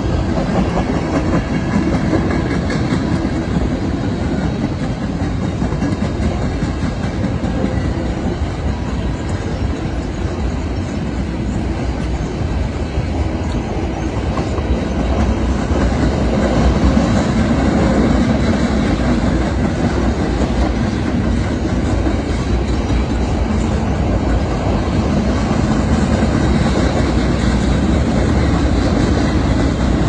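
Loaded flatcars of a freight train rolling past close by, their steel wheels rumbling and clattering steadily on the rails; the sound grows somewhat louder about halfway through.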